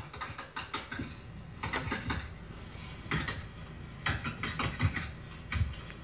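A run of irregular clicks, clatters and knocks, some with a short low thud, heard through a TV's speaker.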